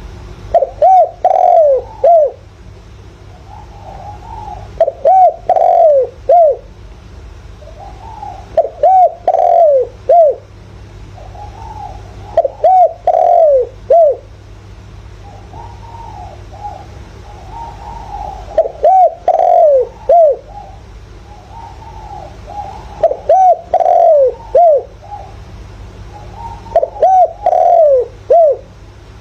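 Spotted dove giving its calling song: seven phrases about four seconds apart, each a run of four or five short, arched coos, with fainter coos between the phrases over a steady low hum. This is the 'giọng thổ' calling voice used as a decoy to stir up wild doves.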